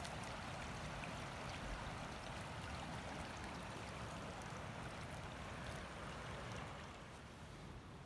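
Steady rush of a flowing river, an even hiss that grows a little quieter about seven seconds in.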